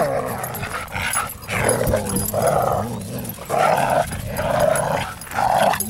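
Two dogs play-growling in a run of short, rough growls, about one a second, while tugging against each other on a plastic flying disc.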